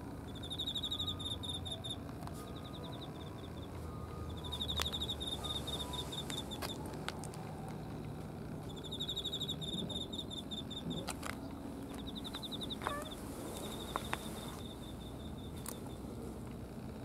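A cricket chirping: high, pulsed trills of about a second each, repeated every few seconds, with a few sharp clicks in between.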